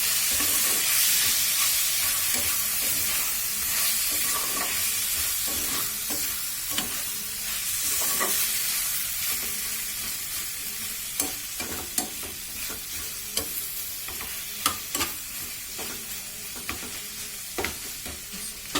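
Chicken pieces frying in a pan with very little oil, sizzling while being stirred, just after soy sauce and tomato ketchup have gone in. The sizzle slowly dies down, and sharp clicks of the stirring utensil against the pan come more often in the second half.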